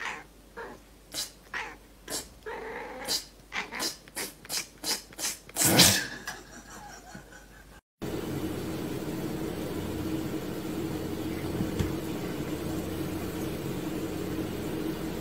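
A cat making a run of short, sharp sounds, about two a second, the loudest near six seconds in. After that a steady low hum with hiss takes over.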